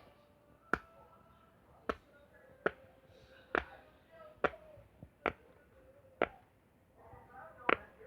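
Sharp taps or clicks on a homemade fidget toy, about nine of them, roughly one a second.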